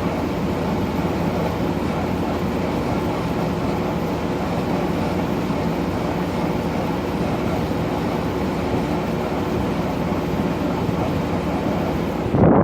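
LG 12,000 BTU air conditioner running in cool mode: a steady rush of blowing air with a low, even hum underneath. A sudden louder bump comes right at the end.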